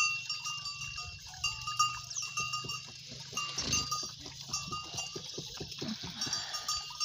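A small cattle bell clinking over and over, each strike a short clear ringing note, amid cows and suckling calves. A patch of quick low knocks and scuffs sounds in the middle.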